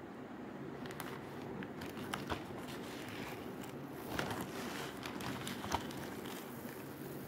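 Dry raw basmati rice grains rustling and crackling as a hand rakes through a pile of them, with irregular small clicks and a couple of sharper ones about four and nearly six seconds in, over a steady low hum.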